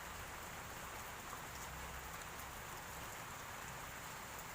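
Faint, steady background hiss with scattered tiny ticks; no distinct tool sound stands out.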